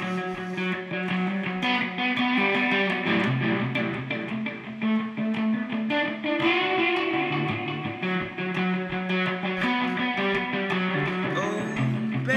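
Electric guitar playing an instrumental passage of quickly picked notes.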